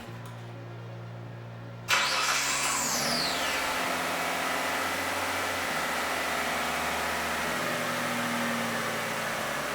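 Mitsubishi Legnum EC5W engine starting about two seconds in, with a falling whine as it fires, then settling straight into a steady idle without sputtering. This is the sign that cleaning the throttle body, idle air control valve and mass air flow sensor has cured its rough start-up idle.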